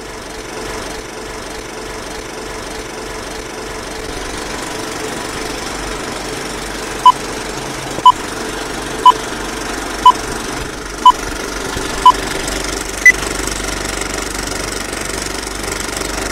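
Film projector running with a steady mechanical rattle that grows gradually louder. About halfway through, six short beeps sound a second apart, followed by one higher beep, a film-leader countdown.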